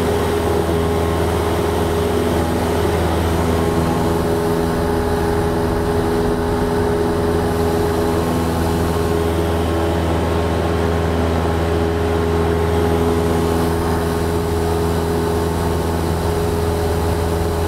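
Cessna 172's piston engine and propeller running steadily in flight, a constant drone heard from inside the cabin.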